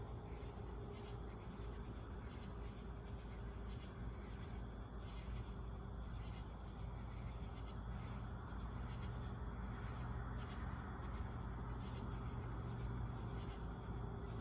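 Night insects, crickets and the like, chirping in a rhythmic, evenly pulsing chorus over a steady low rumble.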